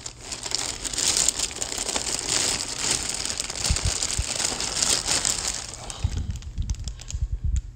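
Plastic fish-shipping bag crinkling and rustling as it is pulled out of the box, then quieter handling with a few dull low bumps near the end.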